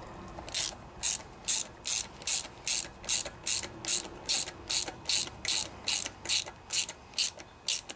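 Hand ratchet wrench clicking in a steady rhythm, about two and a half strokes a second, as a sump cover bolt is run down snug.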